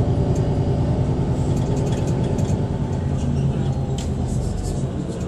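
Bus driving, heard from inside the passenger cabin: a steady low engine and road rumble with a few light clicks, easing a little near the end.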